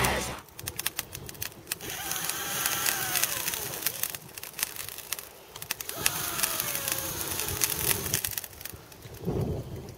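A man blowing hard onto glowing charcoal in a stone grill to fan the embers. There are two long breaths of rushing air, each with a faint whistle that falls in pitch, and scattered crackling clicks throughout.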